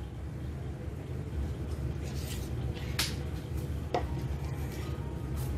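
A steel spoon scooping thick curd into a stainless steel mixer jar, clinking sharply against the jar twice, about three and four seconds in, over a steady low hum.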